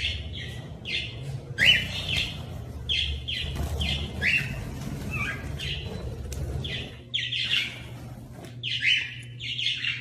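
Cockatiels calling over and over: short, shrill chirps, more than one a second.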